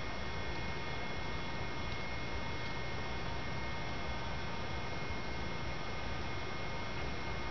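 Steady electrical hum and hiss with a few faint, constant high whining tones and no distinct events.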